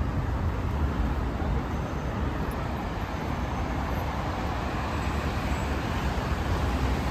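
Steady, dense traffic noise from a busy multi-lane city highway, an even wash of engines and tyres with heavy low-end rumble and no single vehicle standing out.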